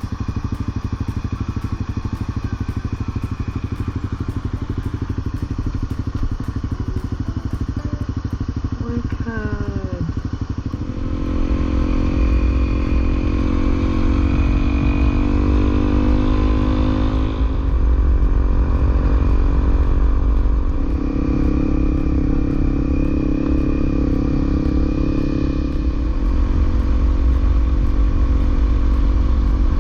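Honda CRF250L trail bike's single-cylinder engine running while being ridden. About a third of the way in it grows louder and fuller as more throttle is given, and it stays that way.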